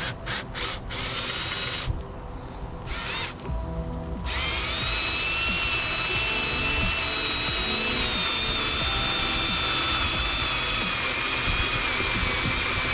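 Cordless drill driving a self-tapping screw through the fan sleeve into the roof. It runs in a few short bursts, then from about four seconds in runs as a steady whine, with the screw going into metal framing without a pilot hole.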